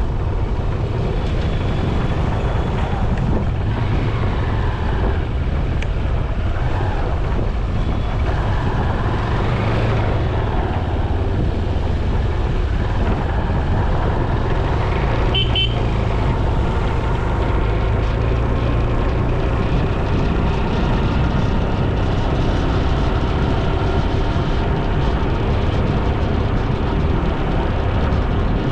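Steady road noise from an on-board ride: a motorcycle engine running under wind rush, its pitch rising and falling a little with speed. There is a short horn beep about halfway through.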